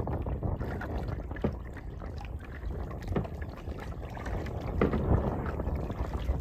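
Water splashing and trickling off a kayak paddle, a stroke about every second and a half, over a low rumble of moving water and air.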